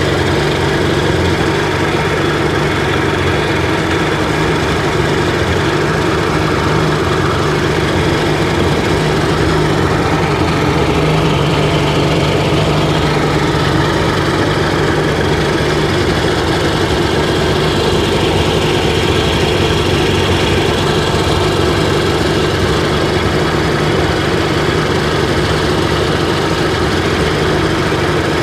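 2002 Sea-Doo GTX DI's Rotax two-stroke twin with direct fuel injection idling steadily, heard close up with the engine compartment open.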